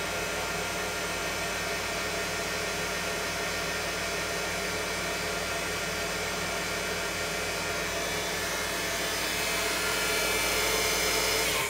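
Grizzly G0704 mill's CNC-converted, VFD-driven spindle running steadily at 5,000 rpm: a hum and whine made of several steady tones over a hiss, growing slightly louder near the end.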